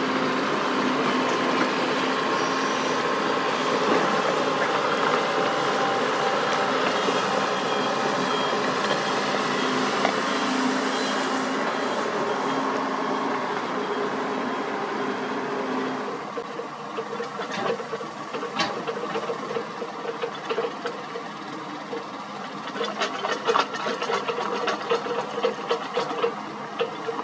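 Diesel engine of a Sany SY75C excavator running steadily, easing off about two-thirds of the way through, followed by scattered knocks and clatter.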